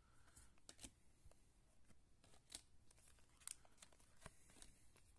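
Near silence with a handful of faint clicks from chrome trading cards being flipped through by hand.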